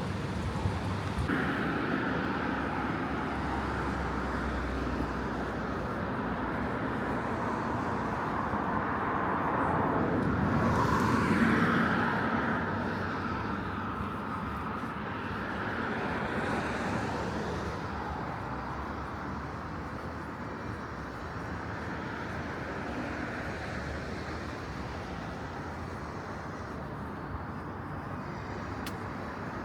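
Outdoor street ambience with a motor vehicle passing by, growing louder to a peak about eleven seconds in and then fading away.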